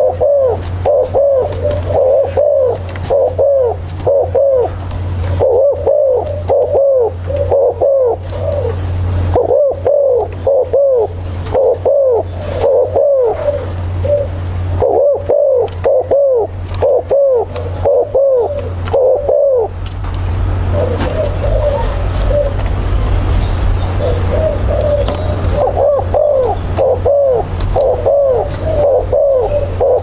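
Spotted dove giving its low repeated 'gù' coo: short downward-bending notes about three a second, in runs of several seconds with brief pauses. A steady low hum lies beneath.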